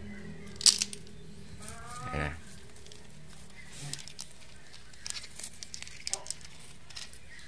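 Dry leaf litter rustling and crackling as a hand rakes through it, with a sharp crunch about a second in and small scattered clicks after. A short call is heard about two seconds in.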